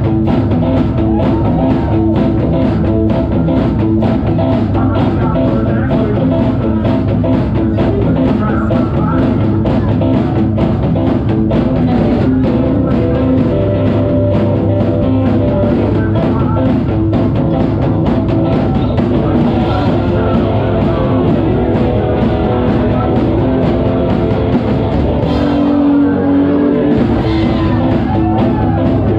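Live psychobilly band playing: hollow-body electric guitar, upright double bass and drum kit at a steady driving beat. The bottom end drops out briefly near the end.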